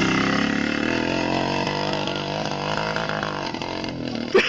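Small motorcycle engine running steadily under throttle, with a sharp knock near the end.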